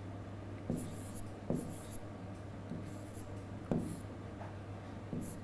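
Marker pen writing on a whiteboard: several short scratchy strokes, with light taps as the tip touches the board.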